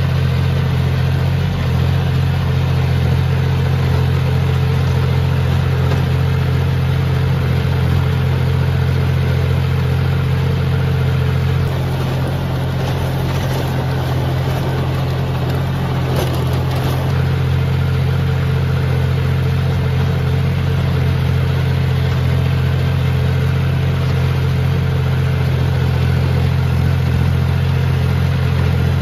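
A John Deere tractor's diesel engine running steadily under load while it pulls a PTO-driven rotavator through the field. For a few seconds in the middle, a rougher churning noise from the rotavator tilling the soil comes up over the engine.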